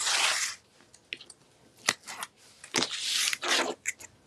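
Crinkly rustling of paper and tape backing as release liner is peeled from double-sided tape on a paper-covered chipboard cover, in two bursts, one at the start and one about three seconds in, with a sharp tap between.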